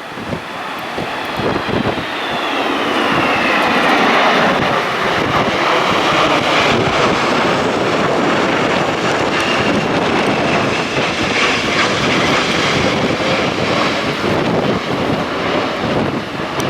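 Jet airliner's engines at go-around thrust passing close by: a high whine that falls in pitch over the first few seconds, swelling into a loud, steady rumble that holds to the end.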